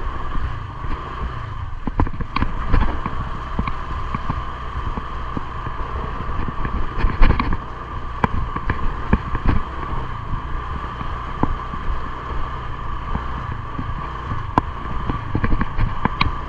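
Honda ADV150 scooter riding slowly along a rough dirt road, its single-cylinder engine running steadily, with scattered short knocks and rattles as it rolls over ruts and bumps.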